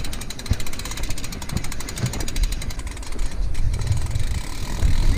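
Mountain bike ridden down a rough dirt trail: a rapid, even ticking from the rear freehub as the bike coasts, fading out about three and a half seconds in, over rattling of the bike and a low rumble of tyres and wind.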